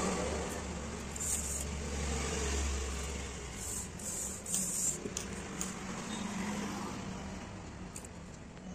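Red cotton blouse cloth being handled and cut with large tailor's shears: short rustling snips about a second in and again around four to five seconds. A low rumble underneath fades out about three and a half seconds in.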